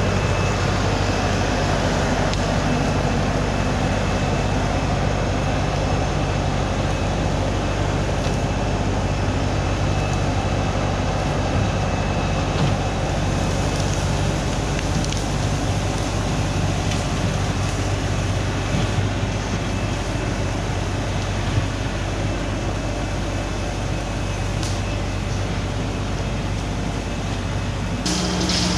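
An engine running steadily with a low, even hum; the sound changes abruptly near the end.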